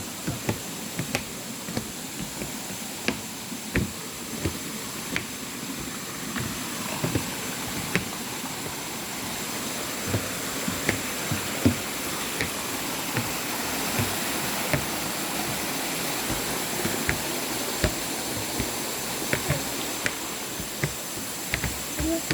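Steady rush of a waterfall's falling water, growing a little louder after the first several seconds, with scattered short knocks and clicks throughout.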